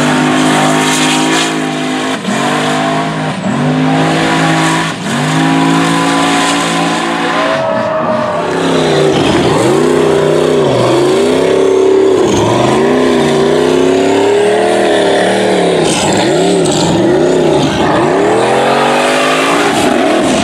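Formula Offroad hill-climb buggy engines revving hard under full throttle while the tyres spin in loose dirt. At first the revs are held high with short dips every second or so. About eight seconds in a second engine takes over, its revs rising and falling roughly once a second as the throttle is worked.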